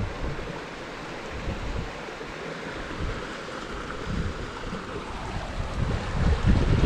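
Creek water running over rocks, a steady rushing hiss. Wind buffets the microphone with a low rumble that grows louder over the last second or two.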